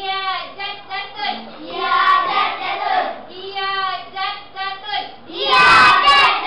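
A class of young children singing together in unison, growing louder and harsher near the end.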